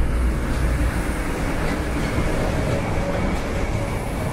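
Running noise of an EMR HST's Mark 3 coaches on the move, heard in the vestibule between coaches: a loud, steady low rumble of wheels on rail with rattling and a few faint clicks.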